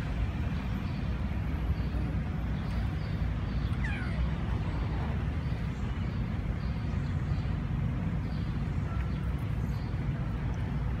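Steady low rumble of distant city traffic, with a faint short call about four seconds in.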